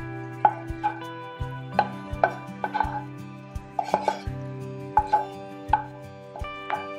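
Wooden spatula knocking and scraping against a pan as fried tofu cubes are pushed onto a plate: a string of irregular sharp taps. Background music with held notes plays throughout.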